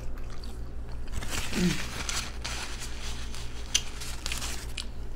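Close-miked chewing of soft cooked food: irregular small clicks and smacks of the mouth, with one brief vocal sound about a second and a half in, over a steady low electrical hum.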